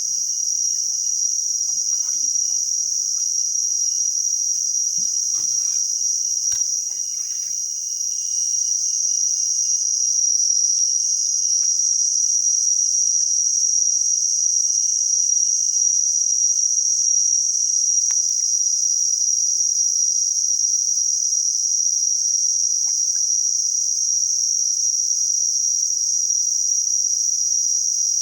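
Dense insect chorus: a loud, steady, high-pitched drone without a break, with a few faint rustles and knocks in the first seven seconds or so.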